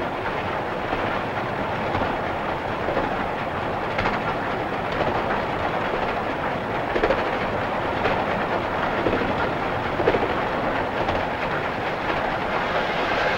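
Steam locomotive running at speed, heard from the cab: a steady rumble and rattle of wheels and running gear, with a few sharp clicks of the wheels over rail joints.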